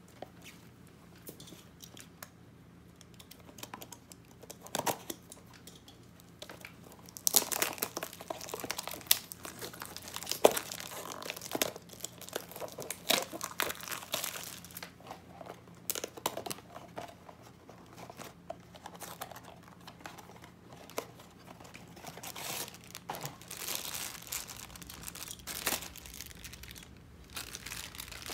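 A Funko Mystery Mini's foil blind bag being handled and torn open: a few small clicks at first, then irregular crinkling and rustling from about a quarter of the way in.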